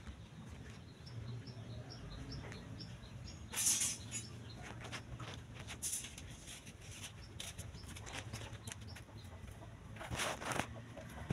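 Outdoor rural ambience with birds: a short high chirp repeated about three times a second for a few seconds, and a brief loud flutter of wings near four seconds in. More rustling comes near the end, over a steady low hum.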